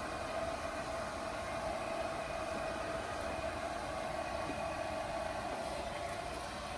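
Heavy rain drumming steadily on the roof of a kei van, heard from inside the cabin.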